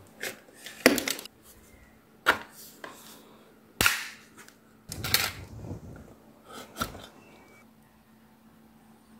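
Hard PVC model parts being handled and set down on a cutting mat: around ten sharp, irregular clicks and knocks that stop about seven seconds in. A faint steady hum runs underneath.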